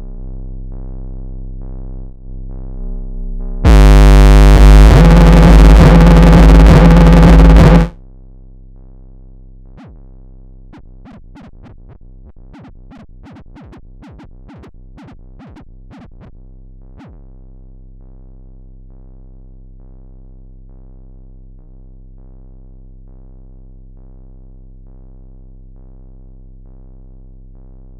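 Synthesized robotic sound effects over a steady low electronic hum: a loud, harsh buzz about four seconds in that lasts about four seconds, then a quick run of short bleeps and chirps that sweep in pitch.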